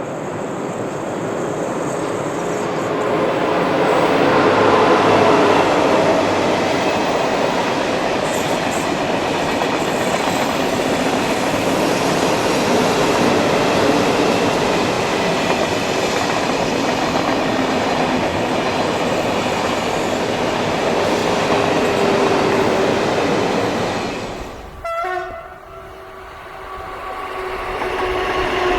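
SNCF TGV trainset passing slowly: rolling noise swells over the first few seconds and holds steady for about twenty seconds. Near the end there is an abrupt break, and the sound of another train starts building, with steady tones in it.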